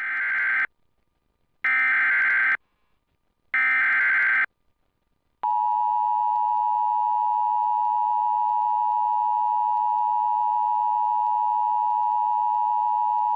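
Emergency Alert System header: three short bursts of screeching digital data tones about a second apart, then a steady two-tone attention signal held for about eight seconds. This is the start of a new warning being relayed.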